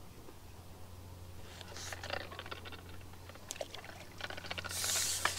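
Water trickling and splashing, with small clicks and knocks of handling. It starts about a second and a half in and builds to a louder pouring rush near the end.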